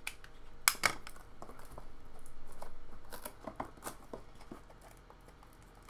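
A sealed cardboard box of trading cards being cut and pried open by hand: two sharp clicks a little under a second in, then a rustle of cardboard and plastic wrapping, with scattered light taps.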